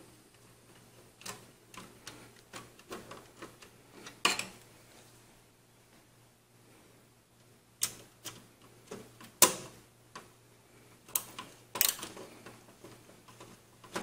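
Irregular small clicks and ticks of bracket screws being driven in by hand to fix a video card to the computer case, with a few sharper clicks and a quiet pause of a couple of seconds around the middle.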